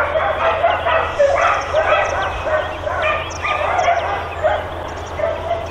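Dogs at a boarding kennel barking without let-up, many barks and yips overlapping one another.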